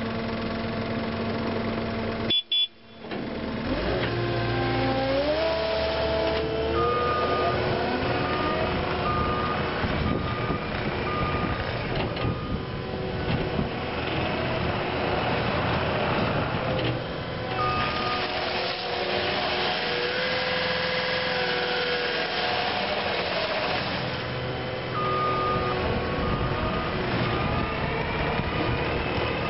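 Cat 279D compact track loader's diesel engine running, steady at first and then rising in pitch as it is revved and the machine drives. Over it, a backup alarm beeps at even intervals in several stretches.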